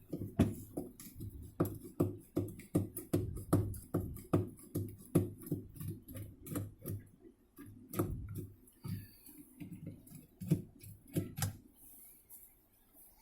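Screwdriver clicking and tapping against the screw in the middle of a washing machine's pulsator cap, several quick clicks a second, thinning out after about seven seconds.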